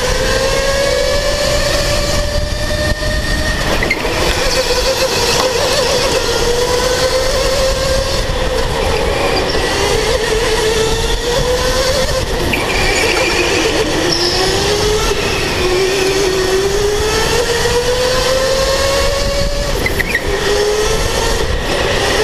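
Electric go-kart motor whining, its pitch climbing as the kart speeds up and dropping back into each corner, over a steady rumble. Fainter whines from other karts come and go.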